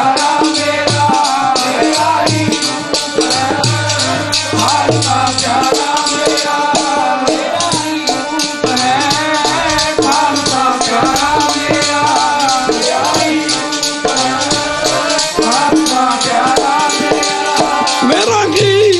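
Sikh devotional kirtan: harmonium and voices singing over a fast, steady jingling rattle beat and a low drum.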